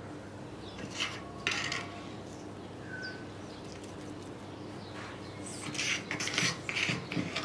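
Hands seasoning chopped vegetables on a wooden cutting board: short rustling and light scraping noises about a second in and again in a cluster near the end. A bird chirps once, briefly, in the background midway.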